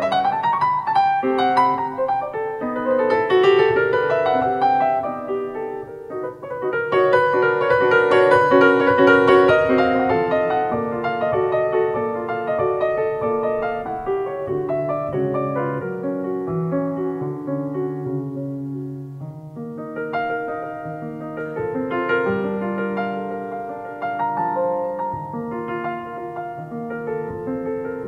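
Solo piano playing a melody over held low notes, growing gradually softer over the second half.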